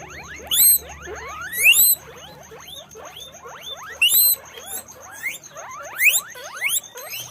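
Guinea pigs wheeking: a continuous run of overlapping rising squeaks, several calls a second, with louder bursts about half a second, two, four and six seconds in.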